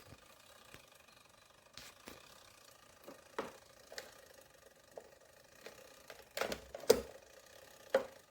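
Irregular plastic clicks and knocks, the sound of a small floor fan's controls and body being worked by hand, spaced about half a second to a second apart, with a loud cluster about three quarters of the way through.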